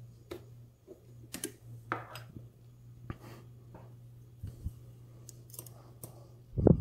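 Small metallic clicks and light scrapes, about nine scattered over the stretch, as a steel lock pick works the pins of a Schlage-keyway pin-tumbler cylinder held under tension. A steady low hum lies underneath, and a louder dull thump comes near the end.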